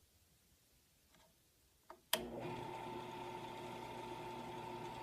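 Drill press switched on with a click about two seconds in, its motor then running with a steady hum.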